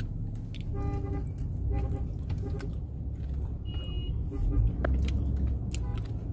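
Steady low rumble of road traffic heard from inside a car cabin at a busy intersection, with a few short beeps and light clicks.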